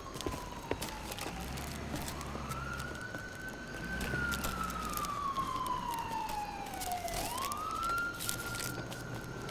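A siren wailing: its pitch rises quickly, holds, then sinks slowly, twice over. A faint low hum runs beneath it.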